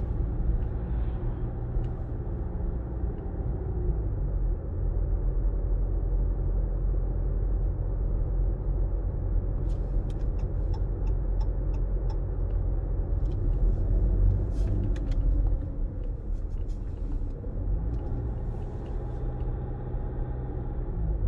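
Vehicle engine and tyre noise heard from inside the cabin while driving: a steady low rumble, with a run of light clicks about halfway through.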